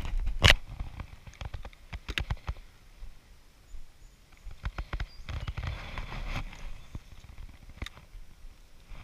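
Clicks, knocks and rustling as a spinning rod and reel are handled in an inflatable boat, with the reel handle being cranked; a sharp click about half a second in is the loudest.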